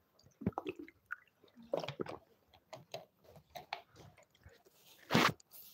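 Irregular small clicks, taps and short rustles, with one louder, sharper noise near the end.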